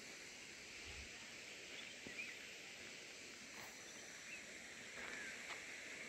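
Faint countryside ambience: a steady hiss with a few short, faint bird chirps.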